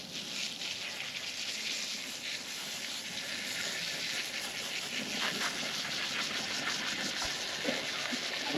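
Steady spray hissing against a small-block Chevy 350 engine, washing degreaser and built-up grime off the block.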